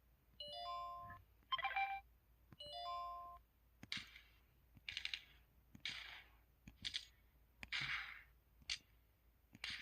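A mobile phone's built-in keypad sounds in its 'Gun' set, played one after another. It opens with a couple of short electronic chime figures, then about a second in a noisy pop. From about four seconds in, a run of short synthetic gunshot-like bangs comes roughly once a second.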